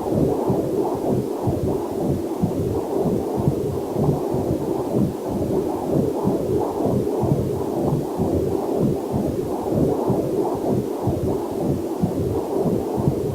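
Heartbeat picked up by a fetal Doppler monitor: quick, even, whooshing pulses, muffled and low, with a faint steady rush of waterfall mixed underneath.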